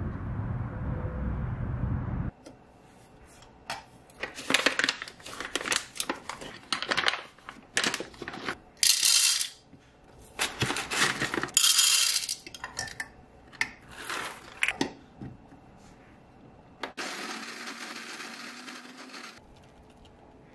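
Coffee beans clattering and rattling in the hopper of a Shardor electric coffee grinder, in a run of sharp clicks and pours with two longer rushes. A steady whir follows for about two seconds near the end. A low outdoor rumble at the start cuts off after about two seconds.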